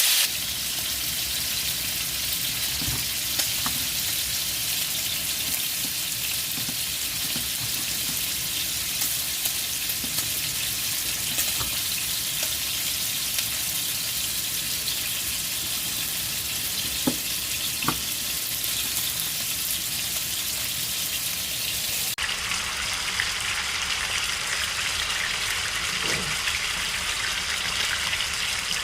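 Marinated pork chops frying in oil in a pan: a steady sizzling hiss with a few scattered pops. About three-quarters of the way through the sizzle shifts abruptly in tone.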